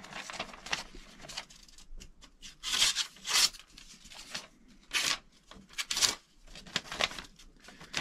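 Sheet of lined notebook paper being sliced by the D2 steel blade of an Ozark Trail folding knife: several short, sharp slicing strokes, roughly a second apart, from a blade sharp enough to cut the free-held paper cleanly. Lighter paper rustling is heard between the strokes as the sheet is handled.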